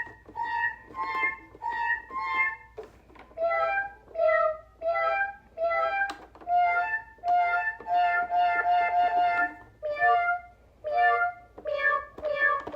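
B-Toys cat toy keyboard playing short electronic notes, one key press at a time, with a quick run of rapid notes about eight seconds in. The notes change pitch, because pressing the same key faster makes this older keyboard play a different note.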